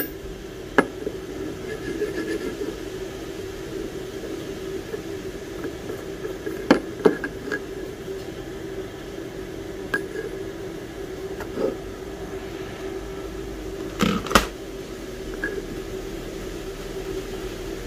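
Short metal clinks and taps of a stainless steel coffee tamper and filter basket as ground coffee is tamped, over a steady hum. A pair of sharper knocks comes just before the middle, and a louder pair about two thirds of the way in.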